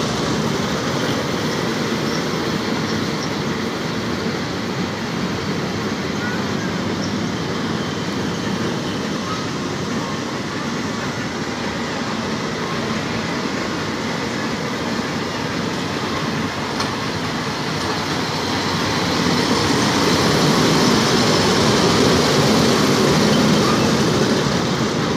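Small amusement-park ride train running on its steel track, heard from aboard as a steady rolling rumble that grows louder near the end.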